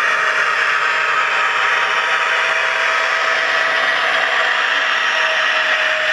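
Dapol N gauge Class 66 model diesel locomotive running steadily down a steep grade: a constant mechanical drone with a few faint, slowly shifting whining tones.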